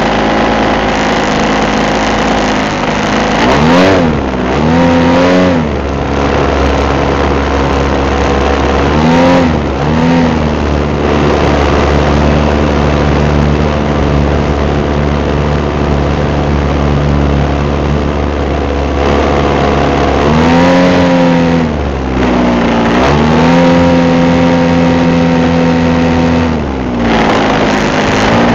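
Engine and propeller of a radio-controlled Cessna 182 scale model heard from on board in flight, running steadily, with its pitch dipping and rising again several times, over rushing wind noise.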